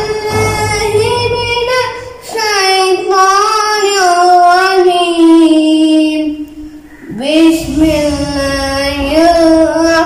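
A boy's voice chanting Quran recitation in Arabic, in long melodic held notes that glide slowly in pitch, with a breath pause about six to seven seconds in.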